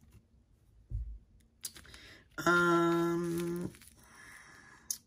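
A woman humming one steady, level note, a held 'mmm' lasting just over a second in the middle. There is a soft low thump about a second in.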